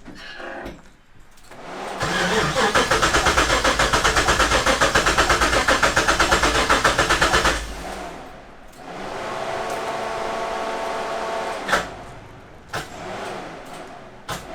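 LS V8 in a Nissan 240SX being cranked by the starter. It turns over in even, rapid pulses for about five seconds without firing, then cranks again more steadily for a few seconds, ending in a click. This is a crank-no-start: the engine is not getting fuel pressure.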